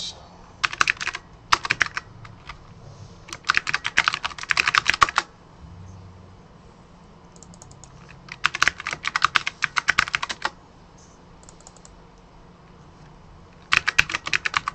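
Typing on a computer keyboard: rapid key clicks in five runs of about half a second to two seconds each, with short pauses between them.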